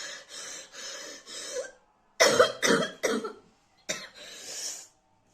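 A woman breathing hard in quick heavy breaths, then coughing hard three times in quick succession and once more with a long breath out. Her mouth and nose are burning from an extremely hot chili chip.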